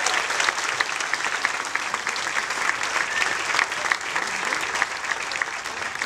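Audience applauding, a dense steady patter of many hands clapping.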